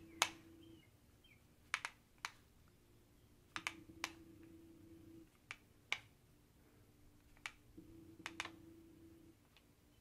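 Terviiix hair crimper's plates clicking shut as it is pressed down along a strand of hair: about a dozen sharp clicks at uneven intervals, some in quick pairs.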